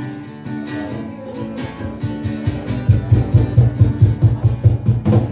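Acoustic guitar playing. Notes ring at first, then it breaks into a fast, even riff of low strokes, about five a second, that grows louder from about halfway.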